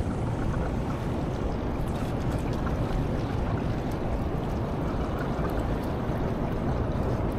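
Steady low rumble and rushing of a boat on the open sea.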